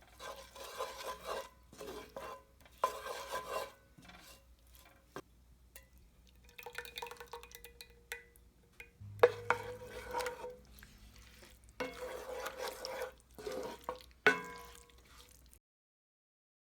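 A utensil stirring and scraping in a pot or pan, in irregular strokes of a second or so, stopping abruptly near the end.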